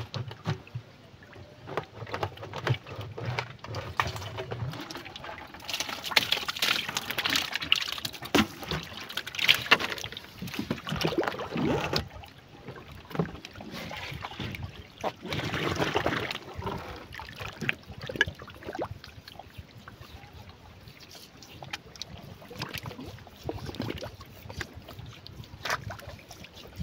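River water sloshing and gurgling around a black rubber bucket as it is lowered over the side of a wooden canoe, coming and going in patches, with scattered knocks.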